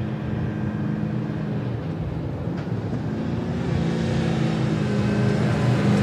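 Pickup truck's engine running steadily as the truck drives up the road toward the listener, growing louder as it approaches.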